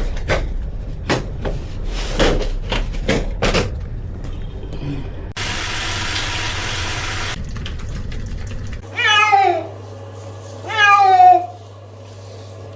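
A cat meowing in protest at being bathed: two long, drawn-out meows falling in pitch about nine and ten and a half seconds in, with a third starting at the very end. Before them come a run of splashes and knocks, then a couple of seconds of steady rushing water.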